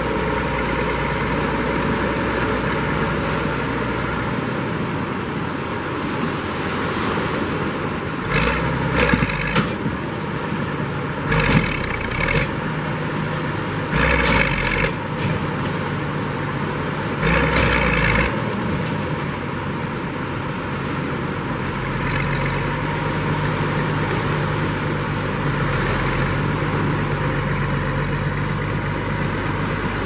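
Farm tractor's diesel engine running steadily under load during a beach boat launch, with four short, louder surges of power in the middle.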